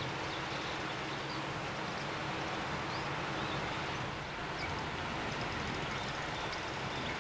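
Steady outdoor harbour ambience: a constant noisy rumble with a faint low hum under it, and a few faint, short bird chirps scattered through.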